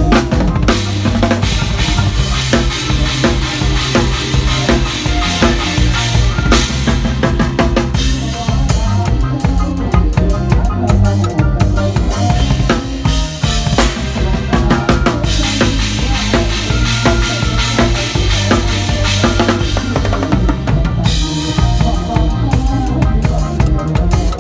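Mor lam band music driven by a loud drum kit, with bass drum, snare and rimshots keeping a steady beat under a continuous bass line.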